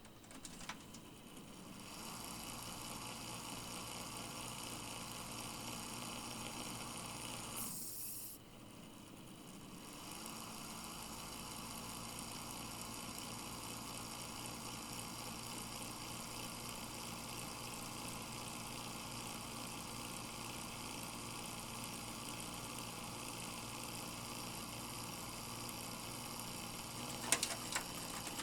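Fan with a badly worn bearing running: a steady whir laced with several whining tones, the sign of a failing bearing. It drops away about eight seconds in and comes back up about two seconds later; a few sharp clicks near the end.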